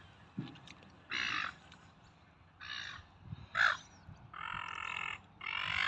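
Silver gulls calling: about five short squawks, closer together and more continuous toward the end.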